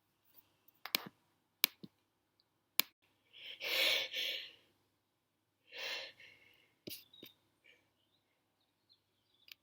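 A person breathing out heavily twice, a longer breath about three and a half seconds in and a shorter one near six seconds, after a few faint clicks; the breathing of a tickly nose working up to a sneeze.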